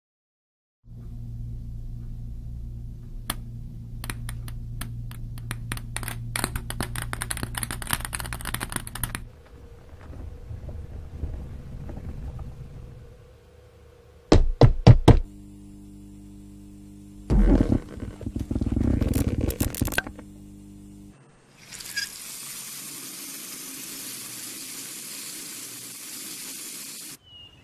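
A series of sound effects. First a run of clicks that gets quicker over a low steady hum. Then, about halfway, a few loud thunks of a ball bouncing down steps. Last, a steady hiss of a running tap that cuts off near the end.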